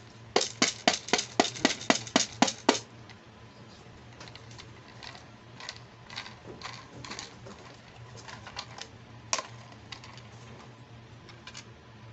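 Hard plastic toy make-up case being handled: a quick run of about a dozen sharp plastic clicks in the first few seconds, then scattered lighter taps and clicks, with one louder click about nine seconds in.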